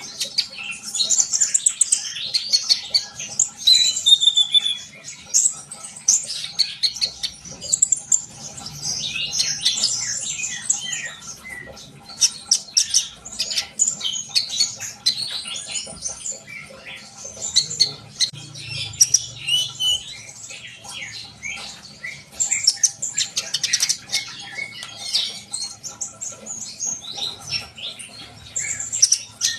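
Sunbird (kolibri konin) singing at full voice, in the sense of the bird keepers' "gacor": a rapid, high-pitched stream of chirps and short trills that keeps going with only brief pauses.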